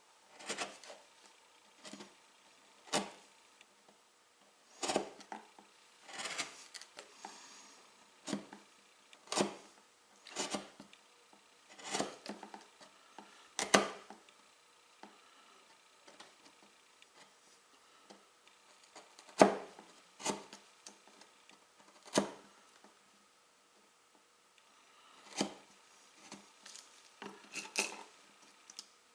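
Bench chisel paring wood by hand, slicing curled shavings from a curved groove. It comes as a series of crisp snaps and short scraping slices, one every second or two, with the loudest snap about two-thirds of the way through.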